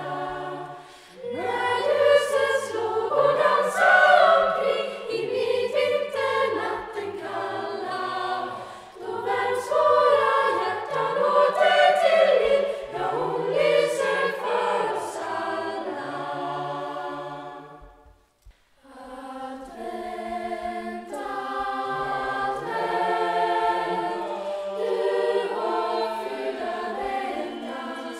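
Choir singing in several parts, holding chords together, with a short break about two-thirds of the way through before the singing starts again.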